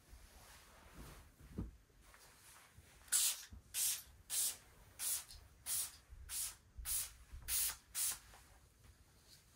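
Spray bottle of fabric mist spritzing bedding: nine short hissing sprays in quick succession, about one every two-thirds of a second, starting about three seconds in. A soft thump of the bedding comes before them.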